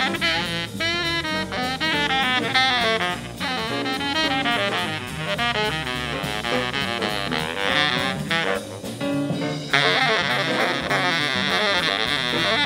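Small jazz combo of trumpet, baritone saxophone, flute, guitar, piano, bass and drums playing straight-ahead jazz: a horn line moving in quick notes over the rhythm section. About three-quarters of the way in the sound grows brighter and fuller.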